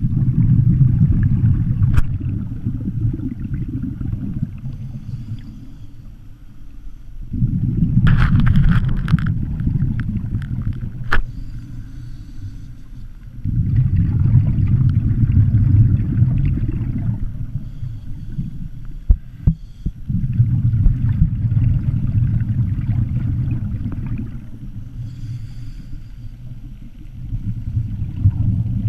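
Low underwater rumble of moving water heard through a GoPro's waterproof housing, swelling and fading in surges every five to seven seconds, with a few sharp clicks about eight to eleven seconds in.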